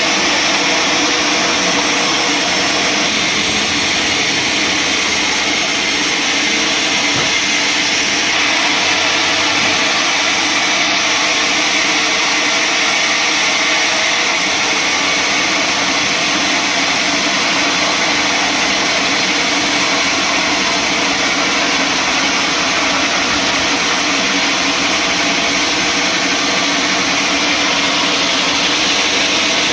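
Sawmill saw cutting through a large mahogany log: a loud, steady machine noise that holds evenly without a break.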